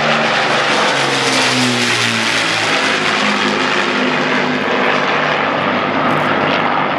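Avro Lancaster's four Rolls-Royce Merlin piston engines and propellers running loud as the bomber passes low overhead. The engine note drops in pitch about a second or two in as it goes by and draws away.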